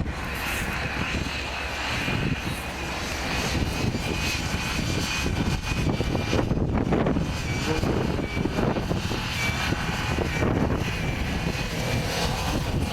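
Off-road 4x4 engine running hard under load, with a thin high whine over it.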